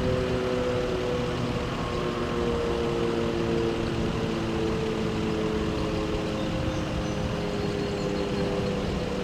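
Federal Signal Model 5 siren in a steady wail during a tornado siren test, holding a chord of sustained low-pitched tones that wavers slightly in pitch. Busy street traffic rumbles underneath.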